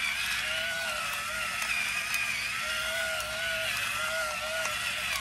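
Electric pepper mill grinding black peppercorns: a steady small-motor whine that wavers slightly in pitch, with a few faint ticks.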